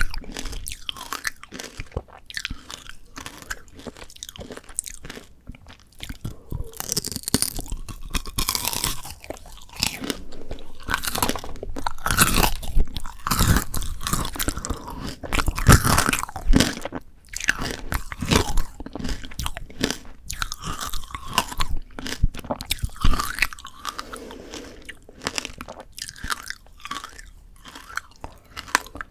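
Close-miked crunching and chewing of frozen shine muscat grape tanghulu: the hard sugar-candy shell cracks and shatters between the teeth in many sharp, irregular crunches, with wetter chewing between them.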